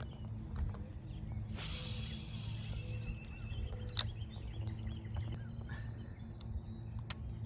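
Boat motor idling with a steady low hum, with scattered sharp clicks and a short hiss about two seconds in.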